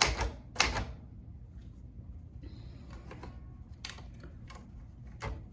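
Keys of a vintage Olivetti Underwood typewriter struck one finger at a time: a handful of separate, sharp clacks at slow, uneven spacing.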